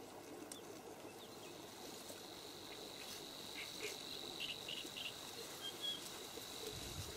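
Quiet outdoor insect chorus: a steady, high, unbroken trill from a stridulating insect, with a few short faint chirps over it around the middle.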